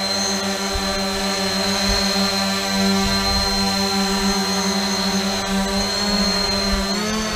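SkyHero Little 6 hexacopter's six T-Motor electric motors and propellers running at a steady hover: a constant droning whine with a high tone on top. The pitch wavers briefly near the end.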